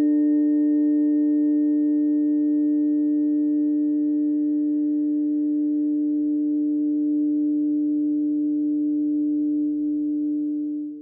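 A steady chord of sustained electronic sine tones layered at several pitches: a sound-healing harmony of planetary frequencies. It fades out at the very end.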